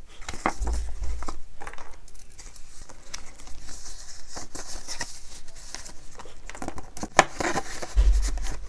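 Paper bills and a paper budget sheet rustling and crinkling as they are handled and slid into a clear plastic binder envelope, with scattered small clicks. A sharp click about seven seconds in, and a low thump near the end.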